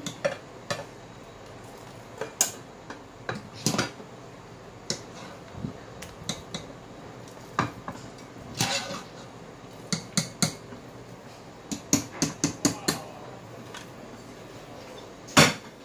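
Metal wire skimmer and cookware clinking and knocking irregularly as blanched bok choy is scooped out of a pot of hot water into a colander, with one loudest knock near the end.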